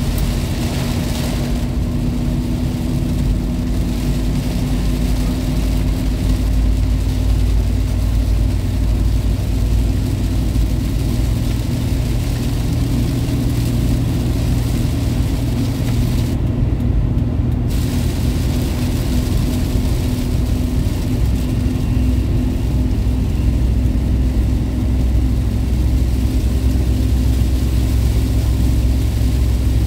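Inside the cabin of a Toyota Kijang LGX cruising on a highway in heavy rain: a steady engine and road drone with a low hum under an even hiss of rain and spray. The hiss cuts out for about a second a little past halfway as the car passes under an overpass.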